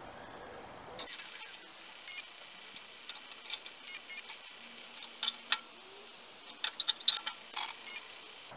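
Sharp metallic clicks and ticks from a hand tap in a T-handle tap wrench being worked round in a bolt hole in a steel motorcycle frame, cutting a thread for an M6 helicoil. The clicks come in two clusters, a couple about five seconds in and a quicker run around seven seconds.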